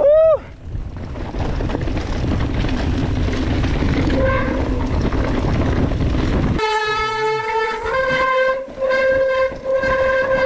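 Mountain bike disc brakes honking: a loud horn-like tone that swoops up and down in pitch right at the start. Then several seconds of rough rolling noise from the bike on the trail, and a steady honk again from about two-thirds of the way in, which steps up slightly in pitch and breaks off briefly twice. The kind of honk typical of wet brake pads and rotors.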